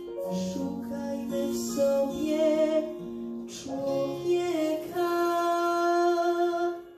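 A girl singing the song's closing long held notes over acoustic guitar backing; the last note is held steady for about two seconds and stops near the end.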